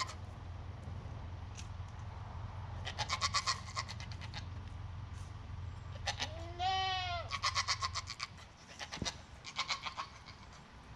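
Goats bleating several times, wavering calls, the loudest about six seconds in. A low steady hum runs beneath and stops about eight seconds in.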